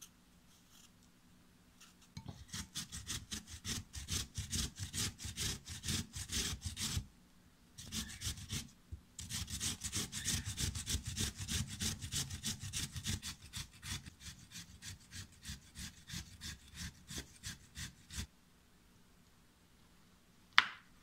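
Raw potato being grated on a stainless steel grater: quick repeated rasping strokes, about three a second, that pause briefly twice. Near the end comes a single sharp knock.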